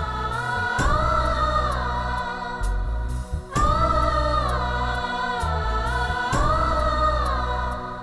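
Dramatic background score of a Hindi TV serial: a choir of voices holds long, gliding notes over a steady low bass, the same phrase starting again about every three seconds.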